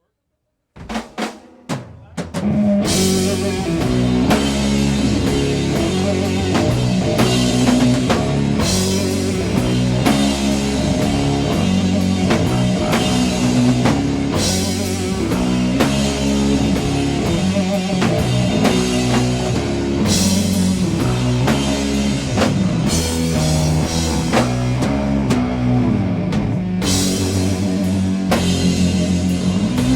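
Doom metal band playing an instrumental passage. After a moment of silence, a few separate drum hits land about a second in, then the whole band comes in at full volume with drum kit, bass and heavy guitars and keeps going.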